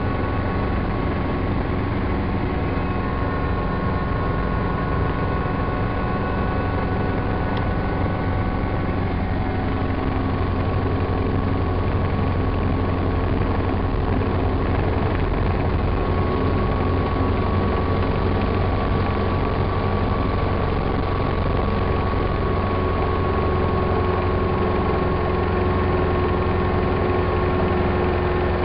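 Helicopter engine and rotor running steadily, heard from inside the cabin: a low rumble under several steady whining tones, growing a little louder about halfway through as the helicopter descends to land near the ground.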